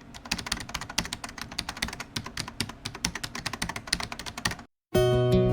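Rapid computer keyboard typing, a fast irregular run of clicks that stops about four and a half seconds in. After a short silence, acoustic guitar music begins near the end.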